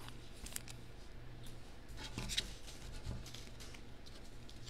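Baseball trading cards being handled by hand: faint scattered rustles, slides and light taps as cards are moved and put into a plastic sleeve, with a couple of sharper ticks about half a second and two seconds in. A faint low hum sits underneath.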